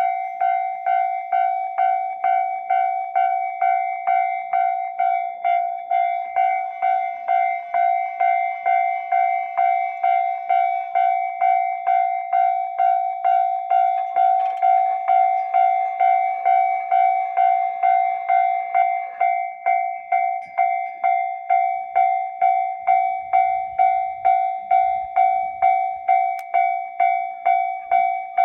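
Japanese railway level-crossing warning bell ringing steadily, about two clanging strikes a second, while the crossing is closed for passing trains. A faint rush of train running noise sits underneath in the middle.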